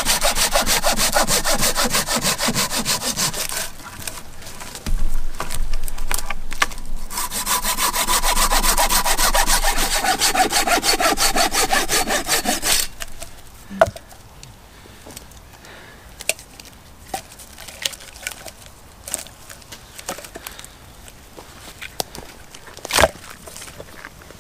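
Hand saw cutting pine firewood in quick, even back-and-forth strokes. It pauses briefly about four seconds in and stops about thirteen seconds in. After that only a few faint knocks and clicks remain.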